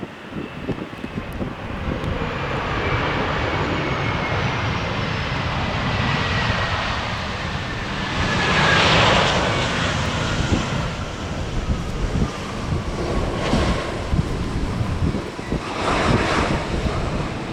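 Jet airliner's engines passing close by: a steady roar that swells to its loudest about halfway through, with a thin engine whine gliding slowly down in pitch as it goes past. Strong wind buffets the microphone throughout.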